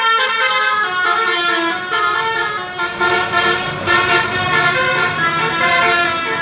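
Bus telolet horn playing a quick melodic tune, a run of short notes stepping up and down in pitch.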